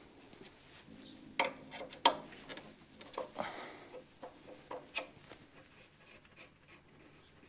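Hand tools being handled: scattered clicks, knocks and scraping, with one sharp click about two seconds in and a brief swish a little later.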